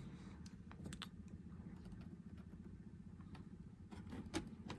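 Faint, scattered clicks and taps of a module being pressed into its slot inside a ThinkPad T61 laptop, over a steady low hum.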